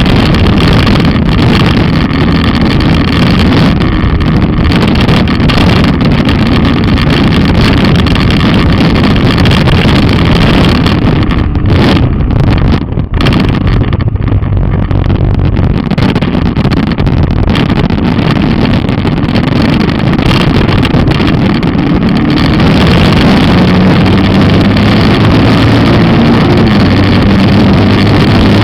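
Skua 250 trail motorcycle's single-cylinder engine running while riding, with wind buffeting on the microphone. The engine eases off briefly about twelve seconds in, then picks up again.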